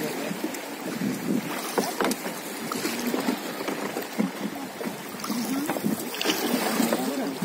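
Fast river water rushing and splashing around a wooden raft as the raftsman's wooden pole churns the current, with wind buffeting the microphone.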